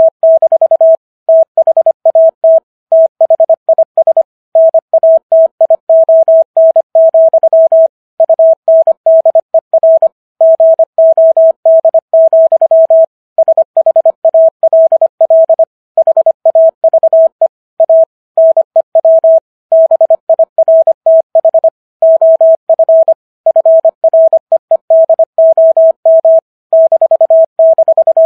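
Morse code sent at 25 words per minute: a single steady tone keyed on and off in quick dots and dashes, with short gaps between letters and longer gaps between words.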